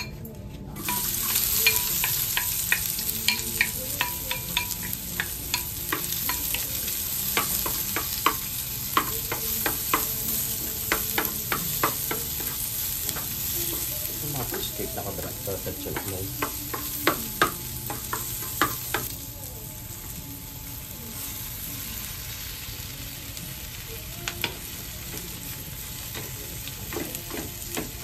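Sliced onion and minced garlic, and then fish cake pieces, sizzling in a frying pan as a wooden spoon stirs them, with many light knocks and scrapes of the spoon against the pan. The sizzle starts about a second in and eases off somewhat in the second half.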